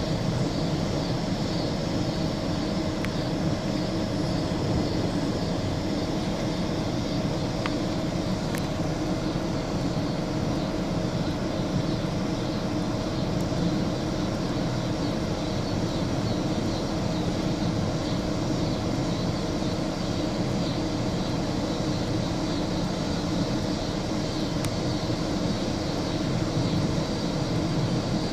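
A steady rushing noise with a constant mid-pitched hum, and a few faint ticks.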